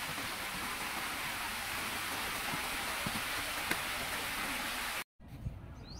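Steady even outdoor hiss with a few faint ticks, cut off abruptly by an edit just after five seconds in. It is followed by quieter background with a brief bird chirp near the end.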